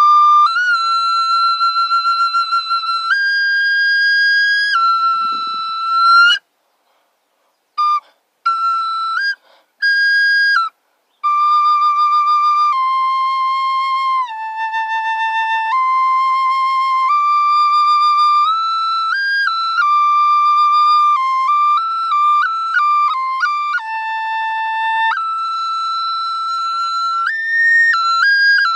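A small end-blown flute played solo in a slow melody of held notes with a slight vibrato. About six seconds in it stops for a second or so, then comes back with a few short notes. Later there is a run of quick, short ornamented notes.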